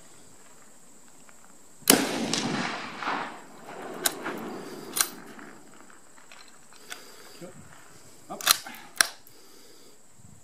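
A single shot from a .308 scoped rifle about two seconds in, echoing for a second or so. A few sharp metallic clicks follow as the bolt is worked.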